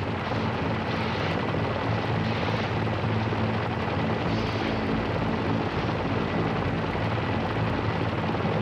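Steady engine drone with a dense rushing noise over it, unchanging throughout.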